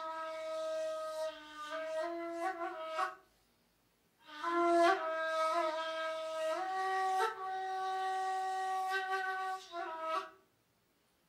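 Solo ney, the Turkish end-blown reed flute, playing a slow melody of long, breathy held notes with small slides between them. It plays two phrases, the first stopping about three seconds in. After a silent gap of about a second the second, longer phrase begins, and it breaks off about a second before the end.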